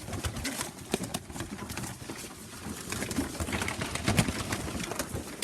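Pigeons cooing softly, with scattered light clicks and taps.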